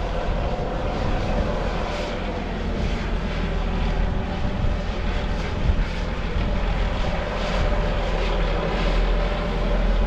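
Pikes Peak Cog Railway train running: a steady mechanical drone over a heavy rumble.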